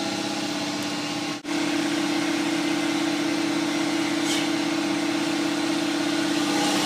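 Steady mechanical hum of a motor running, one unchanging pitch with overtones, briefly cutting out about a second and a half in.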